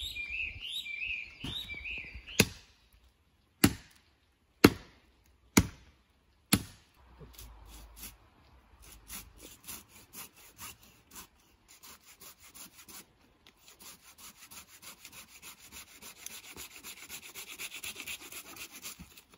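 Wood being worked by hand: a short high warbling whistle, then five sharp blows on wood about a second apart, followed by rapid rhythmic scraping on wood that builds up steadily.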